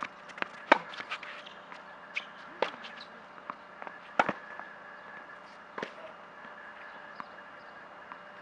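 Tennis rally on a hard court: sharp pops of the ball coming off racket strings and bouncing on the court, spaced a second or two apart, the loudest a little under a second in and about four seconds in.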